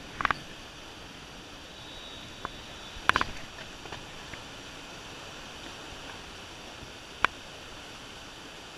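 Steady rush of river water, with a few short sharp knocks, the loudest cluster about three seconds in and a single one near the end.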